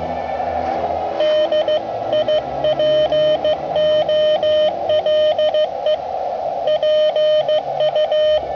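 Morse code (CW) from a portable ham radio: a single steady tone keyed on and off in dots and dashes, with receiver hiss filling the gaps. The first second or so is hiss alone, then the code starts.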